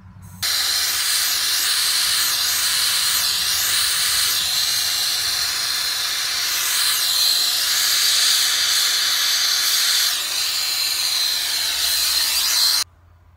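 Small acetylene torch with a number 2 brazing tip, lit about half a second in, burning with a loud steady hiss and a thin high tone, as it heats the radiator's top tank for soldering. The hiss cuts off suddenly near the end.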